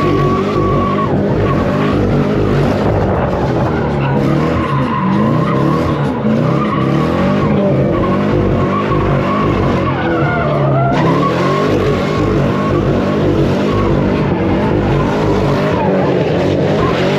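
A car doing donuts: the engine held at high revs while the tyres screech continuously as they spin on the asphalt.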